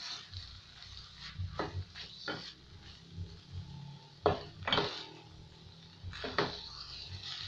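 A spoon stirring a pot of omena (small dried fish) in paste, knocking and scraping against the metal pot. It makes a series of sharp knocks, the loudest a little past four seconds in.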